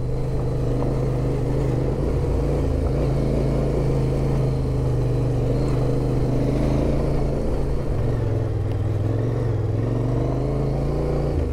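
Yamaha Ténéré 700's parallel-twin engine running at steady, moderate revs under way. Its pitch dips slightly about two-thirds of the way in and picks up again near the end.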